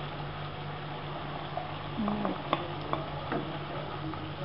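Chicken gravy cooking in a wok with a steady low hiss, and a few light clicks and taps of utensils against the pan about halfway through.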